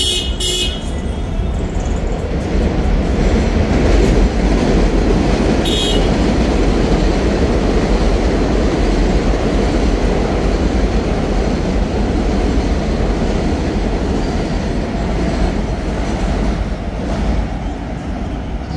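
Elevated subway train passing along the tracks overhead: a loud, dense noise that builds over the first few seconds, holds steady and eases off near the end. Two short high squeals or toots come near the start and about six seconds in.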